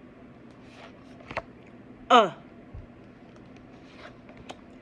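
A woman's voice saying the short-u letter sound, 'uh', once, about two seconds in, its pitch falling.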